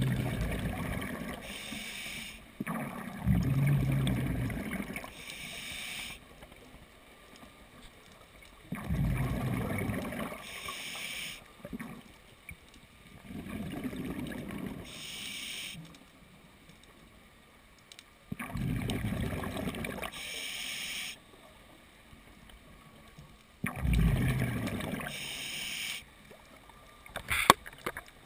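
Scuba regulator breathing underwater: slow breaths about every five seconds, each with a low bubbling rush of exhaled air and a shorter hiss of inhaled air through the regulator. There is a sharp click near the end.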